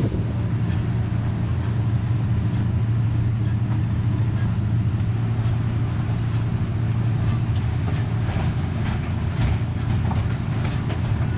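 Water-taxi boat engine running steadily at low speed, a deep even hum, with scattered light knocks and clicks that become more frequent in the second half.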